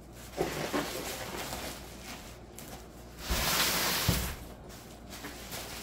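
Plastic packing material and packing peanuts rustling as a bubble-wrapped part is handled and lifted from a shipping box. The rustling is loudest for about a second just past the middle, with a couple of low thumps.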